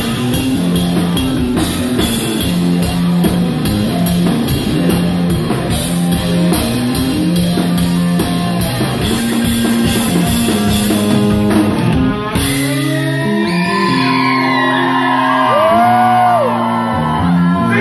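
Live rock band playing loudly: drum kit, electric guitar and bass. About twelve seconds in the drums drop out, leaving held guitar and bass notes under long sliding high notes.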